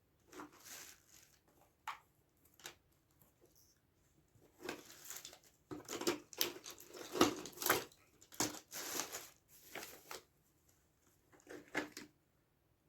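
Hands working on the plastic housing of a Bluetooth speaker: irregular scraping, crinkling and tearing noises as hardened glue is picked and peeled away from the cap.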